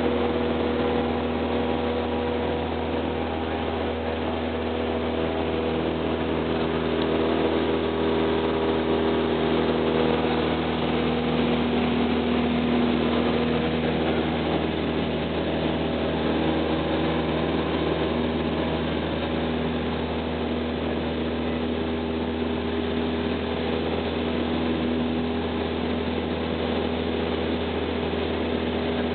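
Cessna 172R Skyhawk's four-cylinder Lycoming engine and propeller running steadily at climb power after take-off, heard from inside the cabin as several even engine tones over a rush of air.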